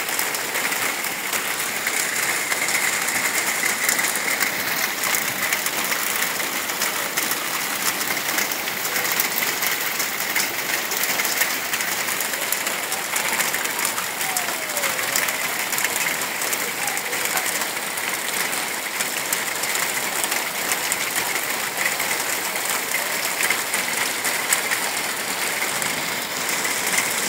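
Heavy rain pouring onto a flooded street, a dense steady patter of drops splashing into standing water.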